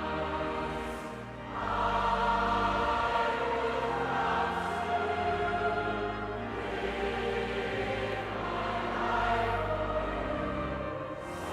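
Choir singing sacred music over sustained low accompaniment, swelling louder after a short dip about a second and a half in.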